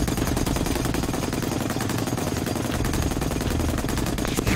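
.50-calibre heavy machine gun firing one long automatic burst, a rapid, even stream of shots, with a louder low thud near the end.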